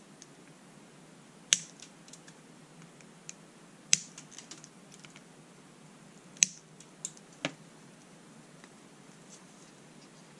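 Flush side cutters snipping off excess component leads on the solder side of a circuit board. Three sharp snaps come about two and a half seconds apart, with a few quieter clicks between them and a pair of smaller snaps soon after the third.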